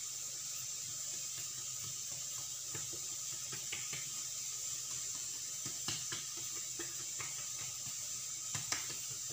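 Hands spreading and stretching oiled msemen dough thin on a granite countertop: soft sticky rubbing with a few light taps, over a steady hiss.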